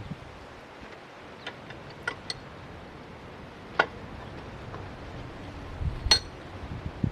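A handful of light, sharp clicks, about five spread out, over a faint steady hiss.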